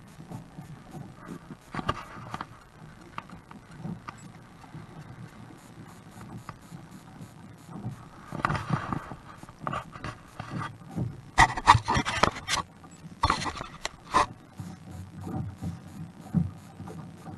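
Wind buffeting the microphone with a low, uneven rumble, and water slapping and splashing against the plastic kayak hull on a choppy sea. Harsher gusts or splashes come about eight seconds in and again from about eleven to fourteen seconds.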